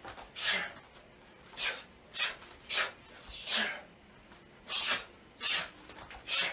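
Sharp, hissing exhalations, about eight of them at irregular intervals, each forced out as a Muay Thai elbow or knee strike is thrown.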